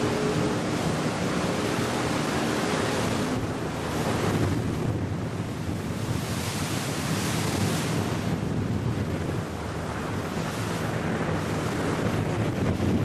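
Small motorboat under way: rushing water from the hull and wake, and wind buffeting the microphone, over a low engine drone. A steadier engine hum fades out after about three seconds.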